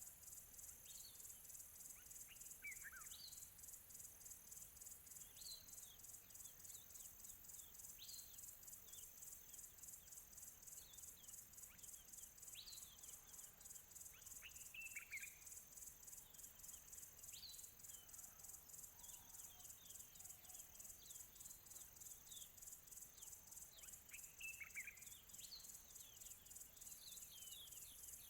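Faint countryside ambience: crickets chirping in a steady, rapid, high-pitched pulse, with short, downward-sweeping bird chirps scattered over it.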